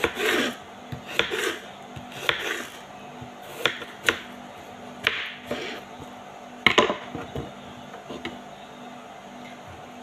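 Kitchen knife chopping a vegetable on a wooden cutting board: irregular knocks of the blade on the board, single or in short runs about every half second to a second, stopping about eight seconds in.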